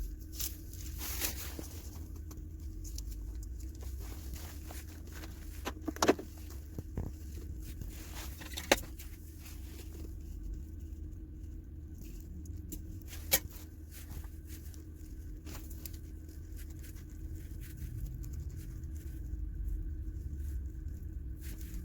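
A steady low hum with a few faint ticks and three short sharp clicks, spaced several seconds apart, typical of tools or parts being handled.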